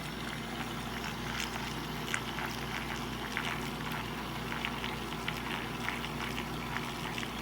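Mini toy washing machine running, its small motor humming steadily while soapy water churns in the tub with scattered crackling splashes.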